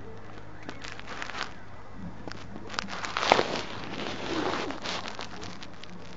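Scuffling and rustling of bedding with small clicks as a kitten rolls, twists and pounces on a bedsheet. The loudest scuffle comes about three seconds in, over a faint steady low hum.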